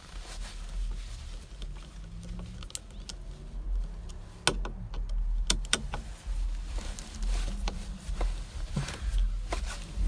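Allen key working the steering wheel's Allen head bolts loose: scattered sharp metal clicks and taps of the tool and bolts, over low rumbling handling noise.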